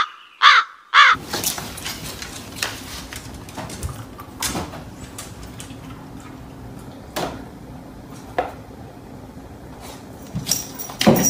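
Short, harsh caw-like animal calls, three in quick succession near the start and more near the end, with scattered light knocks and taps between them.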